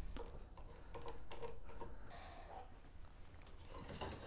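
A screwdriver backing small screws out of a sheet-steel hard-drive caddy: a run of faint, light clicks. Near the end comes a rattle and scrape of metal as the hard drive is slid out of the caddy.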